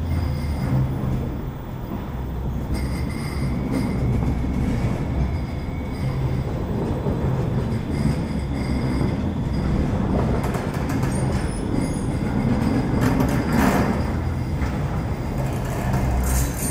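A Bombardier M5000 tram passes at close range in a tunnel, with a steady low rumble of wheels and traction motors. A faint high whine runs for several seconds near the start, and a few clicks come from the wheels over the rail.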